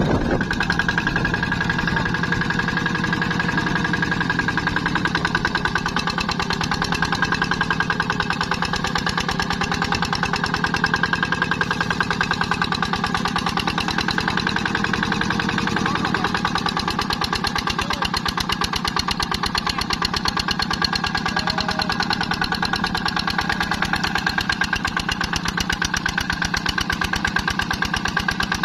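Engine running steadily at an even, fast firing beat.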